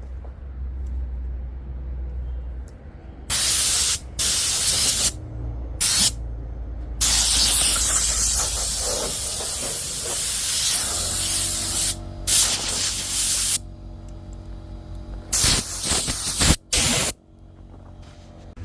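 Repeated bursts of loud hissing spray, several short blasts and one of about five seconds, over a low steady hum.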